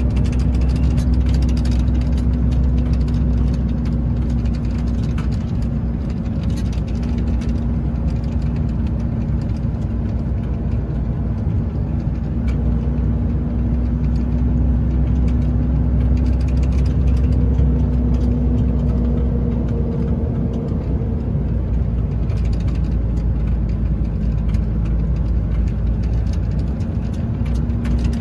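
A heavy diesel engine running steadily at a constant speed, with a steady hum and only small rises and falls in level.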